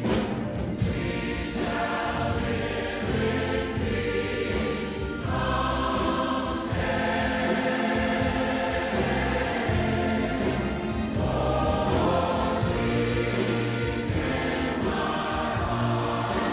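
A large mixed choir singing a gospel hymn together with a full symphony orchestra.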